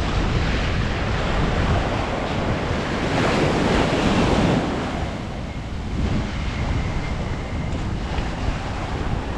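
Sea waves breaking and washing ashore, with wind buffeting the microphone; one wave surges loudest from about three to four and a half seconds in.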